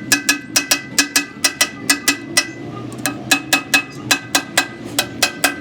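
Hammer striking steel in rapid, evenly spaced blows, about five a second, each with a metallic ring, pausing briefly around the middle before carrying on.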